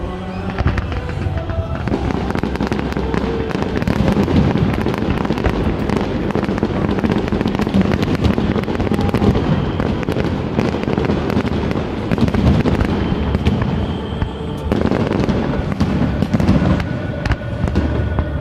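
Fireworks display: a dense, continuous barrage of bangs and crackles, easing briefly near the end before picking up again.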